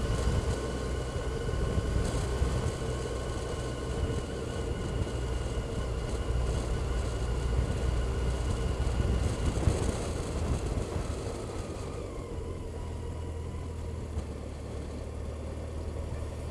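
Motorcycle running at low road speed, its engine note steady under road and wind rumble. About three-quarters of the way in, the engine note drops and the sound quietens as the bike eases off.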